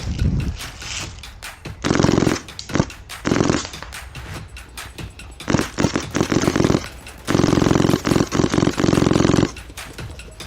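Airsoft replica firing on full auto in buzzing bursts: two short bursts about two and three seconds in, then longer bursts of one to two seconds in the second half.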